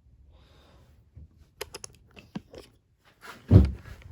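Handling noises: a few light clicks and taps, then a single dull, heavier thump about three and a half seconds in.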